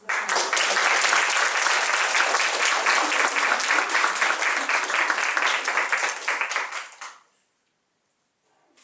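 Audience applauding: many hands clapping at once, starting abruptly and dying away about seven seconds in.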